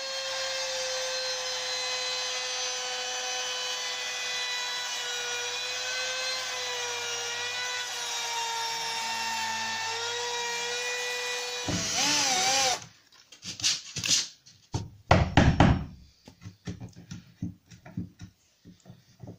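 Compact trim router running with a steady high whine while it cuts a hinge recess in a timber door frame, its pitch sagging slightly as it cuts; about twelve seconds in it briefly gets louder and wavers, then stops. A run of knocks and taps follows as a chisel pares out the recess.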